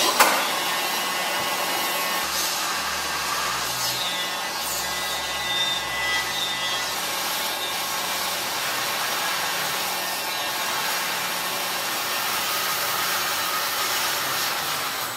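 Two-hundred-year-old wooden rope-twisting wheel (rouet) running, with a steady rubbing whir as it twists stretched cotton thread into cord. It starts with a sharp knock.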